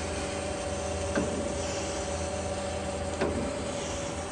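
Freeport SGS-1632AHD surface grinder running in its automatic grinding cycle: a steady motor hum with a constant tone, and a short knock twice, about two seconds apart.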